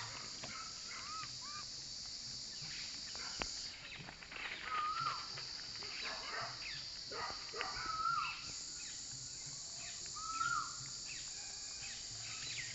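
Outdoor insect chorus, a steady high-pitched hiss that drops out for a few seconds in the middle, with about four short rising-and-falling calls and scattered rustles and clicks in dry leaf litter.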